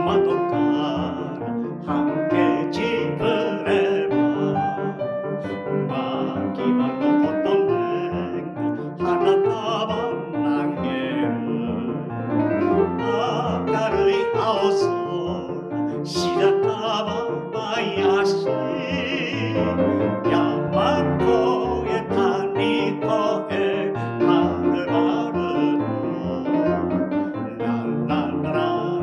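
A man singing a Japanese song in Japanese, accompanied by a grand piano, reaching a 'la la' refrain near the end.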